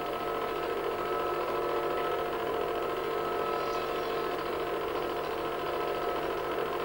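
Film projector running, its motor and mechanism giving a steady hum with several fixed tones.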